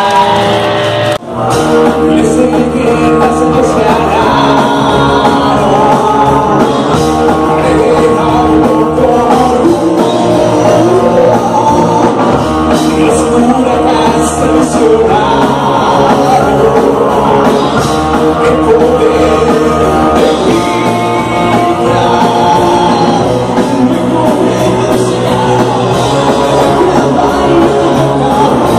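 Rock band playing live, with drums, guitar and a singer, loud throughout. The sound drops out briefly about a second in.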